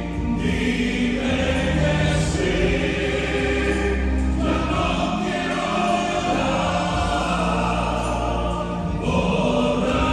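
A male vocal trio singing together in harmony into handheld microphones, amplified over a sound system, with sustained low notes underneath.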